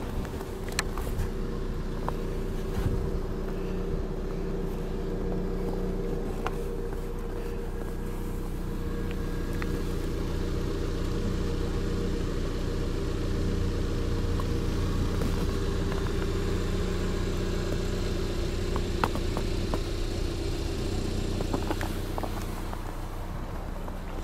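Car engine idling steadily, with a low hum and a few faint clicks over it.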